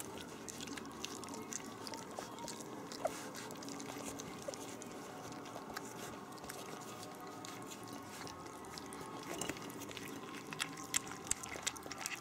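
Several three-week-old puppies lapping and licking soft mash from a ceramic dish at their first solid meal: a continuous run of small wet clicks and smacks.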